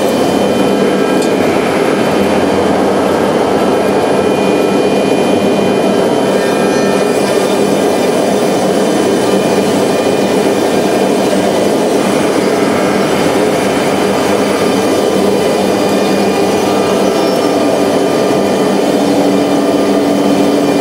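Techno 5x12 CNC router running: the 10 HP spindle spinning in its dust shoe as the head travels over the panels, a loud steady machine noise with several steady whining tones. A lower hum joins in near the end.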